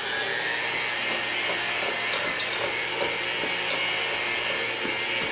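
Electric hand mixer running steadily, its beaters whirring through egg-rich cake batter in a stainless steel bowl.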